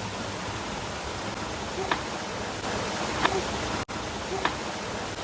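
Steady rush of a waterfall and stream, with three brief short sounds over it.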